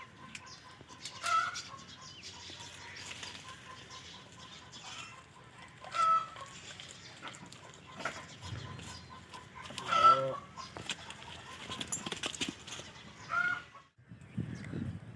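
Chickens clucking: four louder calls spaced a few seconds apart, over quieter scratching and clicking.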